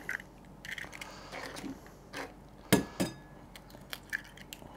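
A few light knocks and clicks of bowl and utensils while a bread-and-milk marinade is being made, the sharpest knock just past the middle.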